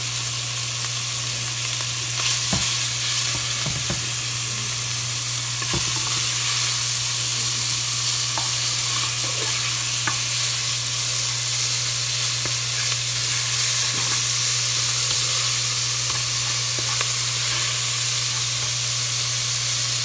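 Bacon sizzling as it fries in a pot, stirred with a spatula, with a few light clicks of the spatula against the pot and a steady low hum underneath.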